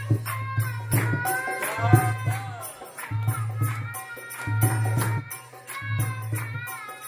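Music: a gliding melody over regular percussion strokes with rattling, jingling accents and a strong low sustained note that breaks off briefly every second or two.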